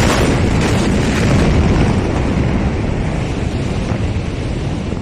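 Blast of the Beirut port explosion reaching the microphone: a sudden loud crack, then a dense, loud rumble that goes on without a break.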